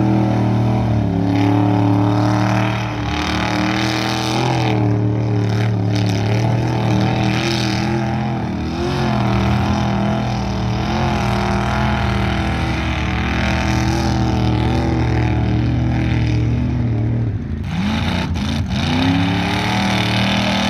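Lifted OBS Chevy pickup's engine running at high revs under load as the truck churns through deep mud, held mostly steady, then dropping and revving back up near the end.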